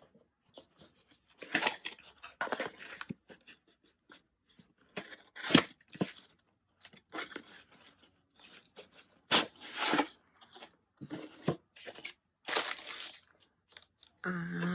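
Kraft cardboard box being opened by hand: irregular scraping and rustling as the cardboard slides and its flaps are pulled open, with a few sharp clicks.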